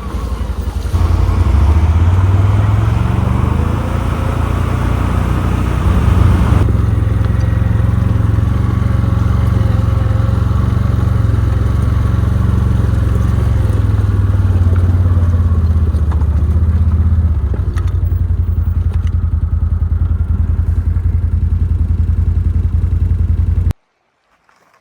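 CFMOTO quad bike engine running on the move, its pitch rising and falling with the throttle. It cuts off suddenly near the end.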